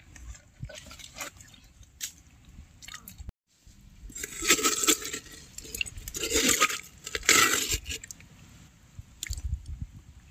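Steel spoon scooping the flesh out of a halved watermelon: three longer bouts of scooping between about four and eight seconds in, with lighter scrapes and clicks before and after.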